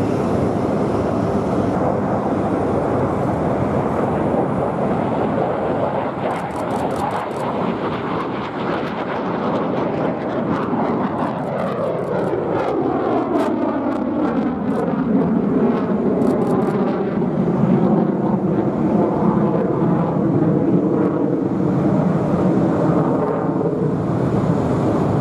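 HAL Tejas single-engine jet fighter, with a General Electric F404 turbofan, flying a display pass with loud, steady jet noise. From about ten seconds in, the noise takes on a sweeping, falling tone as the jet passes overhead. There are a few brief clicks around the middle.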